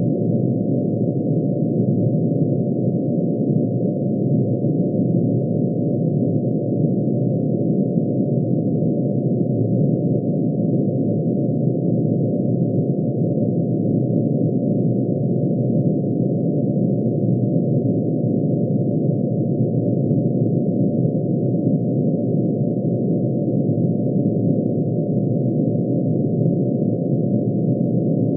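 Synthesized drone made by adding together sine waves, one for each line in mercury's atomic emission spectrum, pitch-shifted down to the audible range. It holds a steady, dense chord of many low tones, unchanging throughout.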